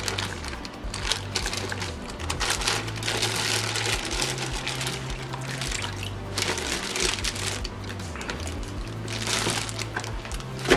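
Plastic bag crinkling and water splashing in a plastic bucket as corals are taken out of their bags, over background music with a stepping bass line.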